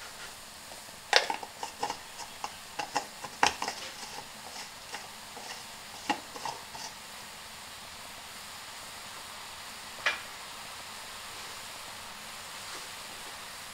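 Pot of tom yum broth boiling hard, a steady hiss with a run of sharp clicks and pops during the first several seconds and one more about ten seconds in.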